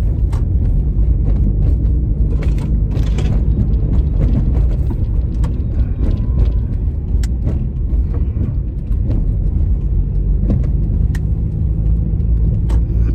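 Car heard from inside the cabin while driving: a steady low engine and road rumble, with scattered small clicks and rattles.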